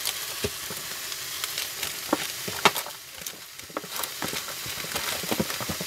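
Chicken and stir-fry vegetables sizzling in a frying pan on a gas hob. Irregular sharp clicks and scrapes sound in the pan as vegetables drop in and the spatula moves.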